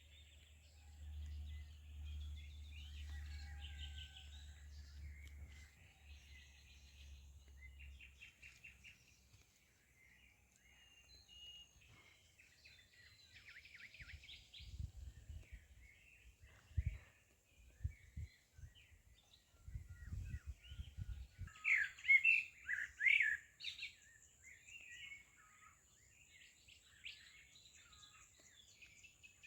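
Several birds chirping and trilling, with short calls overlapping, loudest in a burst about two-thirds of the way through. A low rumble sits under the first few seconds, and a few low thumps come in the middle.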